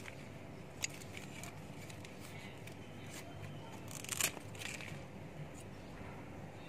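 Leaves being picked and handled: a sharp snap about a second in and a short crackling rustle about four seconds in, over a steady faint background.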